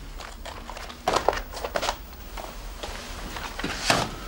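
Scattered soft knocks and rustles in a small room, irregular and brief, the loudest one near the end.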